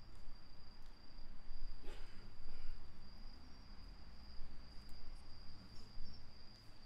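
A steady, unbroken high-pitched insect trill over a low outdoor rumble, with a short rustle about two seconds in.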